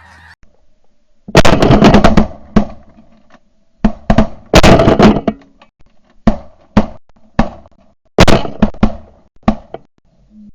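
A volley of shotgun blasts from several guns firing at a close flock of snow geese, in about four rapid, overlapping bursts. The shots are very loud and echo briefly after each.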